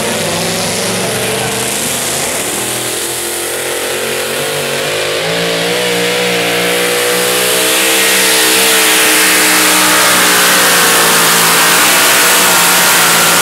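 Pulling truck's engine at full throttle as it hauls a weight-transfer sled down the track. The engine note climbs a little, then holds high, growing louder about halfway through as the truck comes closer.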